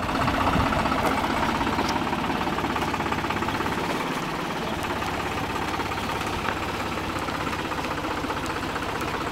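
Diesel engine of a red Case IH cab tractor running steadily as it drives through shallow water. It is loudest as it passes close in the first second and then eases slightly as it pulls away.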